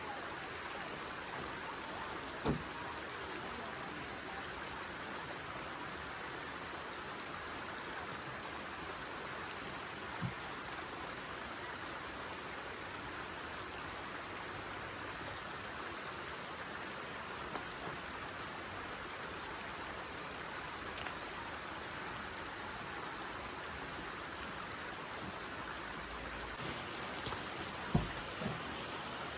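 Steady rush of flowing stream water, with a few short knocks now and then, the sharpest about two seconds in and near the end.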